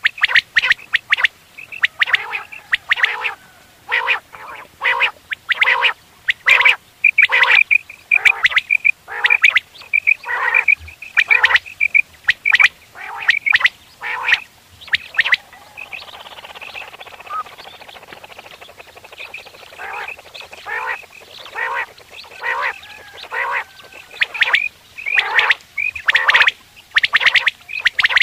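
Quail calling over and over, a rapid run of short, harsh repeated notes, easing into a softer, blurred stretch about two-thirds of the way through before the calls pick up again.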